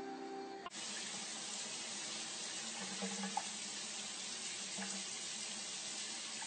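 Tap water running steadily into a sink, starting abruptly under a second in.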